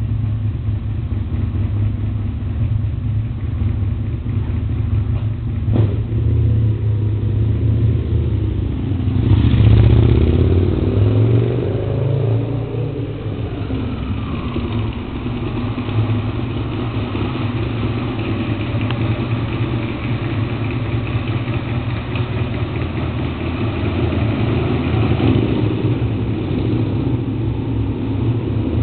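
Aprilia RSV 1000 Mille R's V-twin engine idling with a steady rumble, echoing in an underground car park. It is blipped once, rising and falling, about ten seconds in, then settles back to idle.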